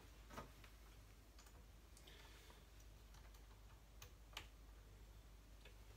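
Near silence broken by a few faint, sharp clicks of small metal parts being handled as a new blade is fitted into a power saw's blade clamp by hand.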